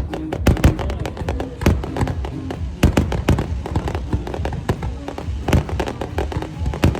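Fireworks bursting overhead: a rapid, irregular run of sharp bangs, a few each second, with music and voices underneath.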